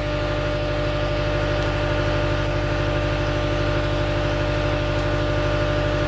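Compact track loader's diesel engine idling steadily, an even low drone with a fast regular pulse.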